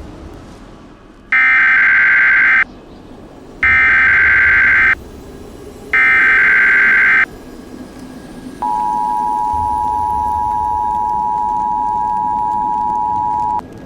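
Emergency Alert System header: three loud bursts of SAME digital data tones, each just over a second long, then the steady two-tone EAS attention signal held for about five seconds before cutting off.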